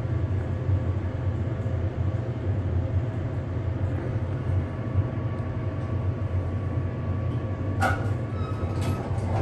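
U.S. Elevator hydraulic elevator car riding down with a steady low hum. About eight seconds in, a sharp click and a short two-tone chime mark its arrival.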